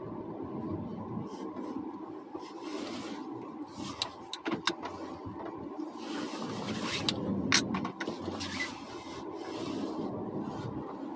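Steady low hum inside a car with its engine running, with a few sharp clicks around the middle.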